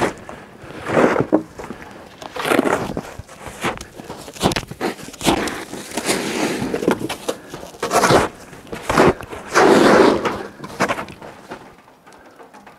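Snow shovel scraping and scooping packed snow in repeated strokes, each a short burst of scraping and crunching, one every second or two.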